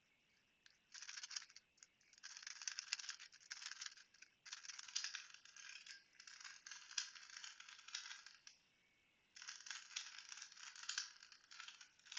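3x3 Rubik's cube being turned by hand: faint runs of plastic clicking and rattling as the layers rotate, broken by short pauses, the longest about eight and a half seconds in.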